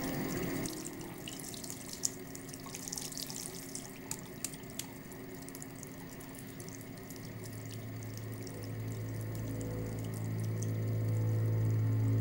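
Tap water running into a bathroom sink, with a few sharp clicks in the first half. A low steady hum swells in over the last few seconds.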